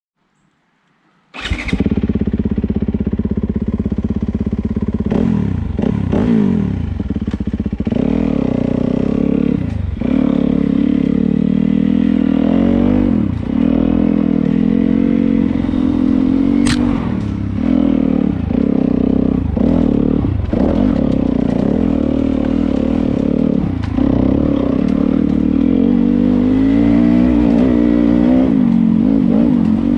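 Dirt bike engine heard close up from the rider's camera while riding a dirt trail. It cuts in suddenly about a second and a half in, and its pitch rises and dips again and again as the throttle opens and closes. There is one sharp click about midway.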